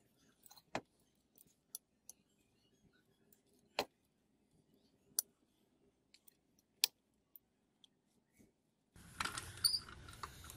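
Hand-turned pipe cutter rolling its cutting wheel around a steel pipe held in a vise, giving sparse sharp metallic clicks every second or two. Near the end comes a louder stretch of scraping with metal clinks.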